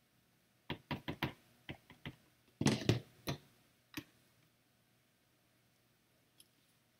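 A run of light clicks and taps as a stamp, ink pad and stamp-positioning platform are handled in stamping. The loudest cluster comes about two and a half seconds in. The sounds stop after about four seconds.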